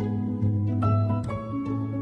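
Background music: separate notes starting one after another over a held low tone.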